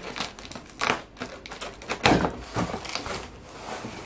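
Large cardboard box being pulled open by hand: a run of scraping, rustling bursts of cardboard flaps rubbing and bending, the loudest about two seconds in.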